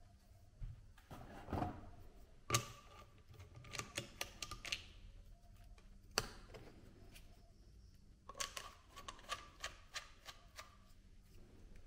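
Scattered clicks, knocks and light rattles of plastic and metal as a chainsaw attachment on a cordless drill is handled and adjusted. A side handle is screwed into the attachment, giving a cluster of clicks near the end. The drill's motor is not running.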